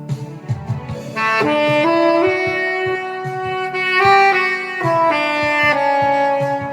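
Saxophone playing the song's melody in long held notes that step up and down, coming in about a second in. Underneath is a backing accompaniment with a regular low beat.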